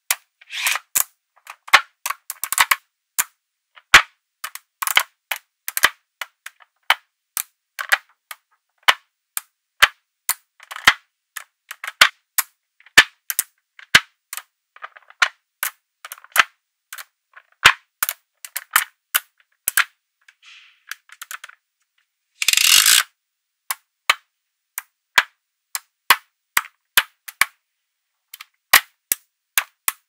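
Small metal magnetic balls snapping together: sharp, separate clicks as strips and stacks of balls are pressed onto the build, roughly one or two a second, with a longer, louder burst of clicking about two-thirds through.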